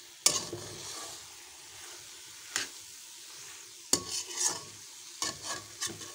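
Grated carrot halwa frying in oil in a metal pot, with a steady sizzle, while a slotted metal spatula stirs it and scrapes against the pot in several sharp clicks and scrapes. The mixture is drying out, with oil starting to separate.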